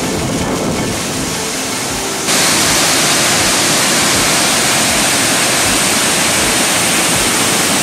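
Steady rush of water from a tall mountain waterfall and the rocky cascade below it. About two seconds in it jumps suddenly louder and brighter in hiss, then holds steady.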